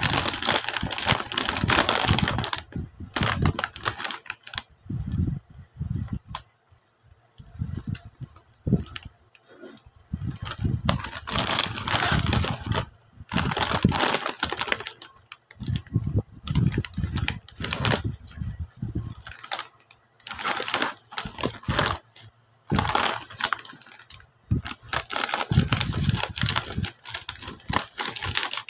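Plastic snack bag crinkling and rustling as it is handled and turned over, in repeated bursts a few seconds long with short pauses between. Near the end, scissors snip through the top of the bag.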